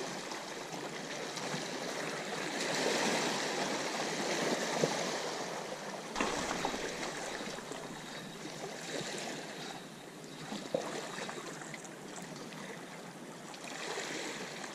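Small sea waves washing and sloshing against breakwater rocks, swelling louder and falling back as the waves come in, with a couple of brief splashes.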